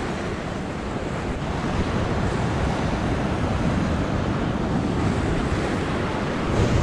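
Ocean surf breaking and washing over rocks, a steady rush that grows a little louder about two seconds in, with wind buffeting the microphone.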